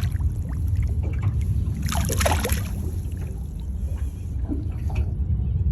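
Water lapping and sloshing around a small aluminium boat over a steady low rumble, with one brief splash about two seconds in.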